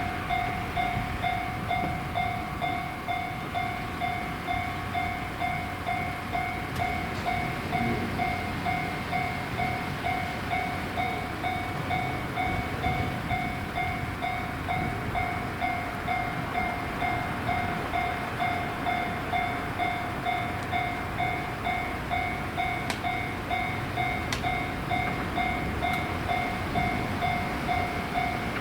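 Japanese railway level-crossing warning bell ringing steadily at about two strokes a second, the signal that a train is approaching the crossing.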